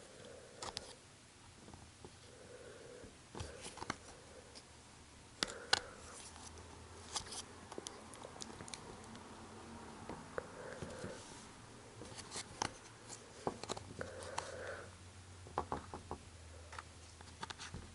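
Small pry tool working around the edge of an iPhone 5's screen assembly: faint, scattered clicks and short scrapes of plastic and metal as the clips of the display come loose from the frame.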